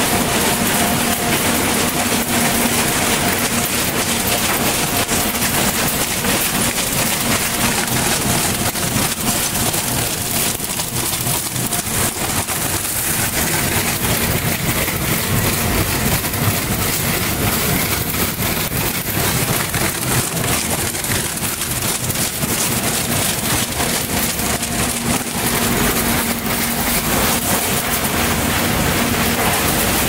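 Machinery of a garbage sorting and recycling line running, including a conveyor belt carrying mixed refuse: a loud, steady mechanical din with a hum that fades for a while in the middle and returns near the end.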